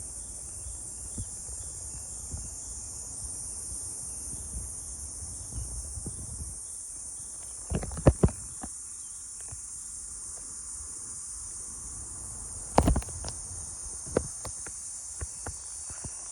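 Steady high-pitched chorus of summer insects, with a low rumble underneath and a repeating chirp in the first few seconds. A few sharp knocks or taps come about halfway through and again a few seconds later, louder than the chorus.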